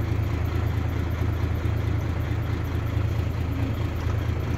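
Isuzu 6HH1 inline-six diesel truck engine idling with a steady, even hum.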